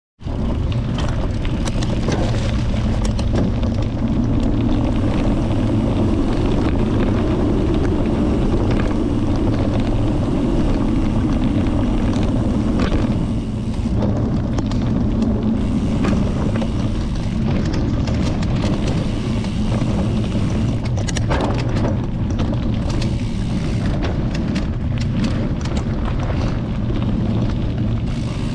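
Steady low rumble of wind on the microphone and knobby bike tyres rolling over a dirt forest trail while riding, with scattered clicks and rattles from the bike, more of them in the second half.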